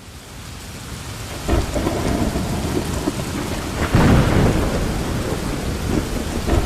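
Heavy rain falling with rumbles of thunder. The sound builds over the first second or so, and the loudest rumble comes about four seconds in.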